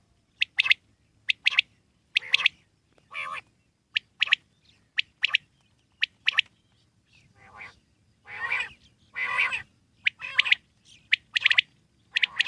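Quail calling: a quick, irregular series of short, sharp call notes, many in pairs, with two longer, harsher calls about eight to ten seconds in.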